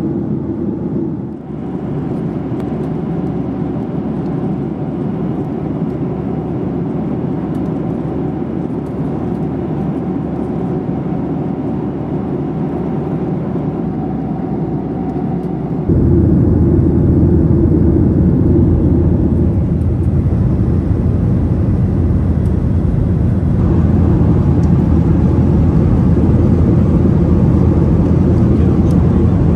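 Steady cabin noise inside a Boeing 737-800 in flight: a dense rush of airflow and engine drone. It steps up louder and deeper about halfway through.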